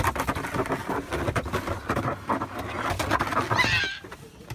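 Knocks and scuffs of footsteps and a red plastic sled being handled on a wooden deck, over a low rumble. Near the end comes a short wavering high squeak.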